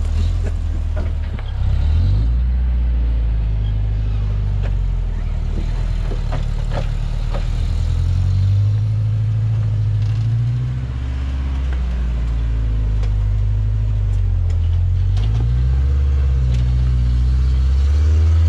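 Toyota 4x4 rock crawler's engine revving up and down at low speed as it climbs a rock ledge, its pitch rising and falling several times, with a few sharp knocks in the first half.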